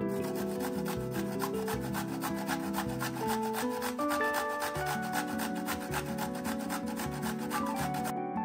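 A raw carrot being rasped against a stainless-steel box grater in rapid, evenly spaced strokes, over soft background music.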